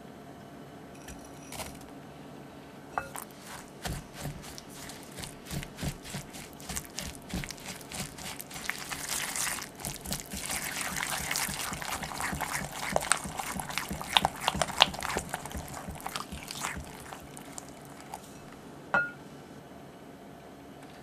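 Whisk stirring granulated sugar into cream cheese in a glass bowl: a fast run of gritty scrapes and light taps of the wires against the glass, building up through the middle and then dying away. A single clink with a brief ring near the end.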